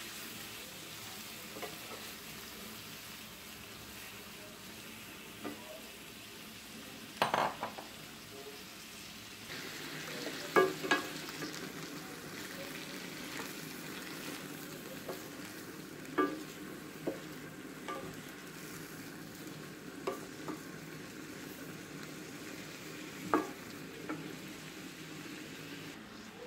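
Large shrimp frying in butter in a metal wok, sizzling steadily as a wooden spatula stirs and turns them. Now and then the spatula knocks sharply against the pan, loudest about a third of the way in.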